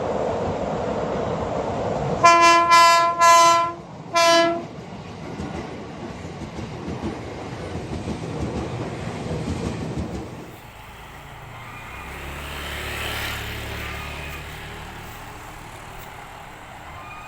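KRL Commuter Line electric train passing close, its wheels rumbling on the rails. Its horn gives a quick run of short blasts about two seconds in and one more a second later, the driver's horn greeting. The rumble drops about ten seconds in, leaving a fainter low hum.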